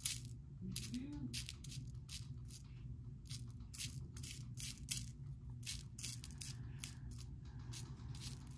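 Light, irregular clicks, a few a second, from small beads and beading tools being handled, over a low steady hum.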